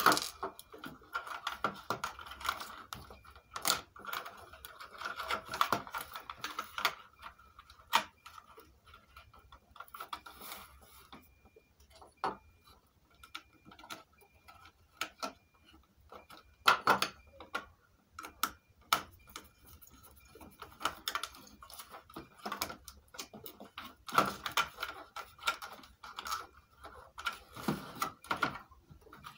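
Irregular clicks, taps and knocks of hands handling the plastic chassis, circuit boards and cables of an opened home theatre unit. The sharpest knocks come about halfway through and again past three-quarters of the way.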